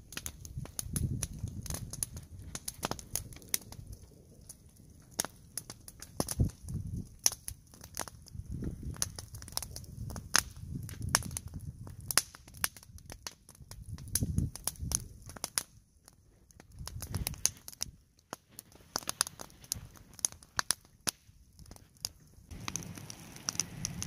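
Wood campfire crackling, with many sharp, irregular pops and a few heavier low thuds.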